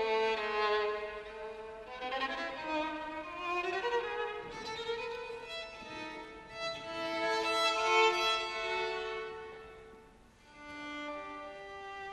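Solo violin playing a melody in long held notes over ensemble accompaniment. It swells to its loudest about eight seconds in, dips briefly near ten seconds, then goes on more softly.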